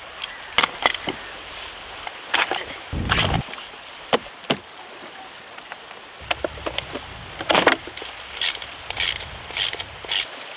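Scattered clicks and knocks of a small wrench and RC car wheels being handled as the paddle wheels come off and the rubber stock tires go on, with a heavier thump about three seconds in.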